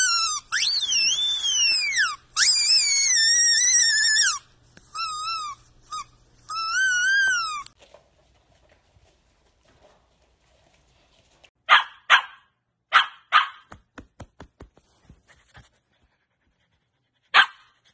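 A miniature schnauzer howls in long, high, wavering notes for about the first eight seconds. After a quieter stretch, a dog barks a few short times about twelve seconds in and once more near the end.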